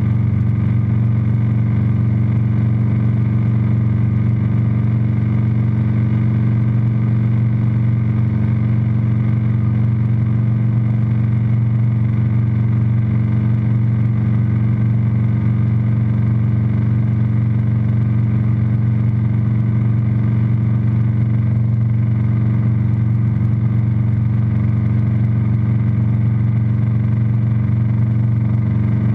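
Single-engine light aircraft's piston engine and propeller droning steadily in flight, heard inside the cockpit, a constant low tone with an overtone above it and no change in pitch.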